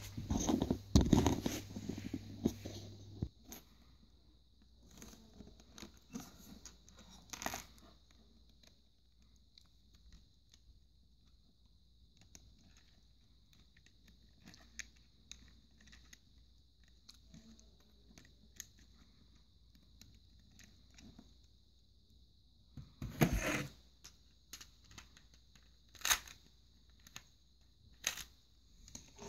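Plastic clicks and rattles of a home-built Lego rubber-band pistol being handled and reloaded, with a few louder knocks, the loudest about a second in.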